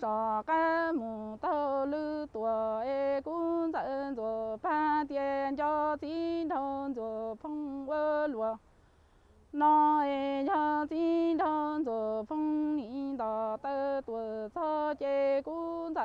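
A woman singing solo and unaccompanied in Hmong, a chanted melody of short held notes stepping between a few pitches. She pauses for breath about nine seconds in, then goes on.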